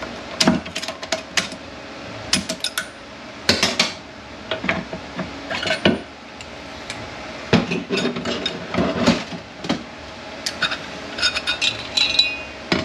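Steel planetary and ring-gear parts of a Mercedes 722.9 automatic transmission clinking and clattering as they are handled and set down during disassembly: a string of sharp metal-on-metal knocks, some ringing briefly.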